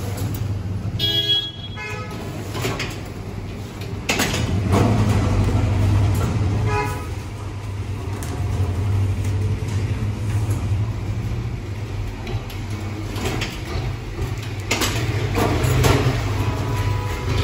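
Steady low hum of vehicle engines, with a horn tooting briefly twice. A few knocks come as the large cardboard carton is lifted and set down.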